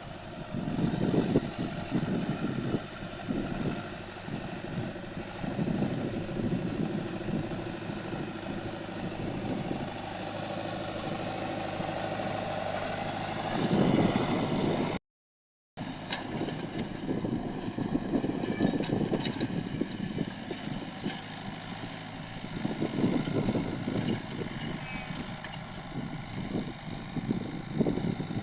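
An engine running steadily, with irregular gusty rumbling over it; the sound cuts out for under a second about halfway through.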